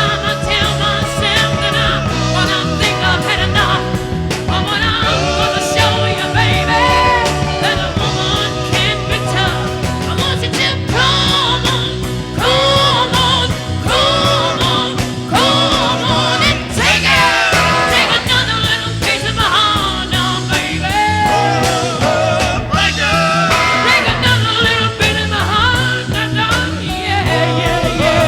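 Background music: an upbeat rock-and-roll song with a singing voice and a steady beat.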